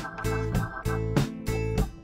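Background music with a steady beat, about three hits a second.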